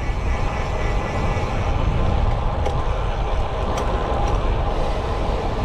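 Steady rushing wind and road noise while riding a road bike, strongest in the low rumble, with a couple of faint clicks near the middle.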